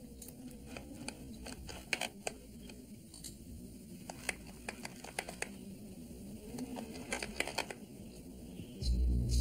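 Irregular clicking and crackling of ropes under strain as a heavy load is hauled up by hand. A low musical drone swells in near the end.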